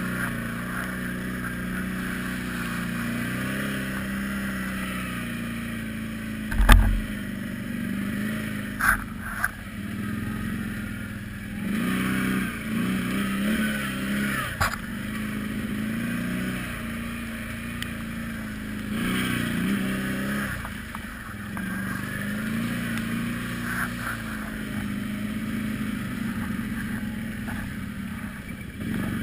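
Quadzilla X8 quad bike engine running as it is ridden over rough muddy ground, revving up and easing off several times. A heavy thump comes about seven seconds in, with a couple of smaller knocks soon after.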